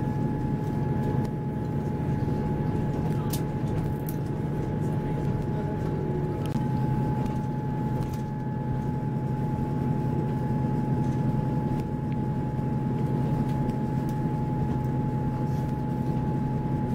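Diesel passenger train running steadily: a low drone of engine and wheels with a constant high whine above it and a few faint clicks.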